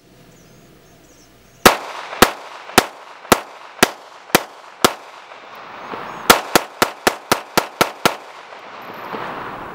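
Gunshots from a 9mm Glock 19 Gen 5 pistol fitted with a GSOD compensator: a steady string of about seven shots roughly half a second apart, a pause of about a second and a half, then a faster string of about seven more. Each shot rings on with an echo.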